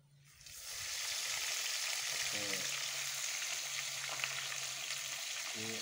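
Masala-battered fish pieces deep-frying in hot oil in a small wok: the oil starts to sizzle within the first second as a piece goes in, then keeps up a steady, dense sizzle.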